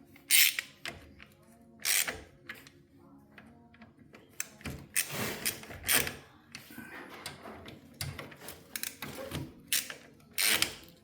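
Hand ratchet clicking in several short runs, running in bolts on a truck's rear axle assembly.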